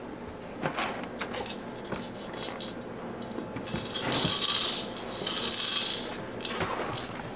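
Plastic bead-rattle cylinder on a baby activity saucer's tray being spun, rattling loudly in two bursts of about a second each, with light plastic clicks and taps from the toys before them.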